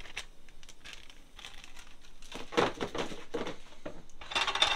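Thin plastic bag crinkling in irregular bursts as crickets are shaken out of it into a frying pan, loudest about halfway through and again near the end.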